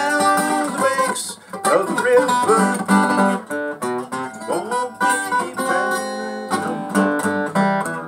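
Takamine EF360STT acoustic guitar, its sides cracked, played as a slow blues: picked single notes and strummed chords, some notes bent in pitch.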